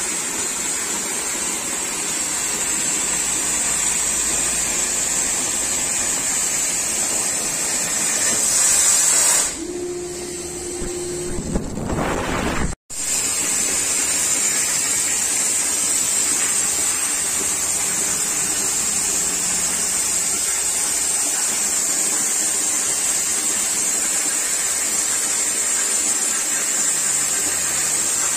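Oxy-fuel cutting torch on a CNC flame-cutting machine hissing steadily as it cuts steel plate. About ten seconds in the hiss gives way for a few seconds to a lower sound with a steady hum. It then cuts off abruptly and the hiss returns.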